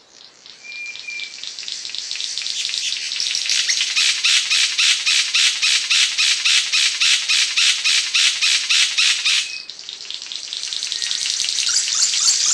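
Cendrawasih panji songbird singing a rapid series of harsh, buzzy notes, about five a second, growing louder. The song breaks off about nine and a half seconds in and starts again a second later.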